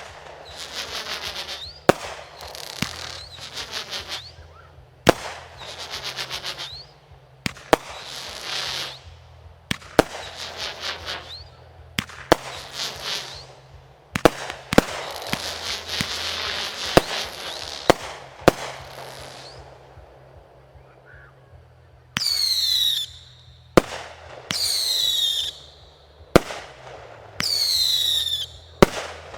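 Aerial fireworks display: a rapid run of sharp shell bursts, each followed by a crackling, sizzling shower. From about two-thirds of the way in come four loud whistling shells, each whistle falling in pitch and ending in a pop.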